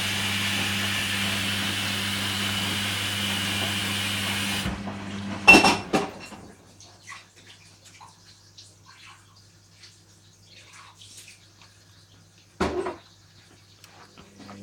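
Hoover Dynamic washing machine taking in water for its rinse: water hissing in through the inlet valve with a steady low hum, which shuts off about five seconds in. Then faint trickling in the drum, with a sharp knock just after the shut-off and another near the end.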